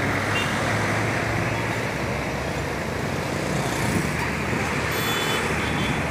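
Steady road traffic noise from large vehicles such as intercity buses running along the road, with no horn melody sounding.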